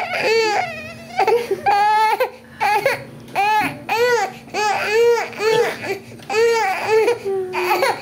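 Newborn baby crying in short, high-pitched wails, about two a second, with one longer wavering cry about two seconds in.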